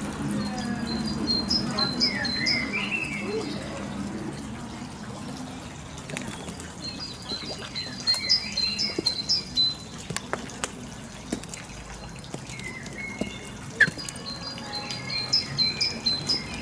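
A songbird singing the same short phrase three times, several seconds apart, each a quick run of high chirps with lower notes.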